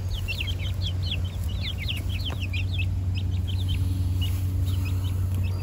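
A flock of young American Bresse chickens peeping continuously: many short, high chirps, several a second, overlapping from different birds.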